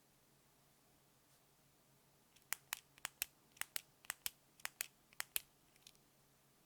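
Keys on a Hansung TFG ART keyboard with Outemu low-profile "Snapspring" clicky switches and PBT pudding keycaps being pressed: about six pairs of sharp clicks over roughly three seconds, the clicks in each pair about a fifth of a second apart.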